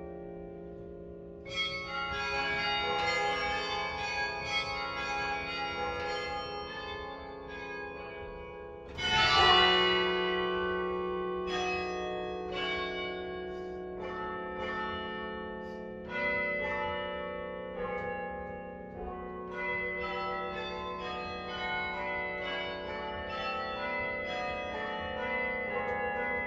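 Carillon bells played from the baton keyboard: a run of struck notes that ring on and overlap, with a loud low bell and chord struck about nine seconds in.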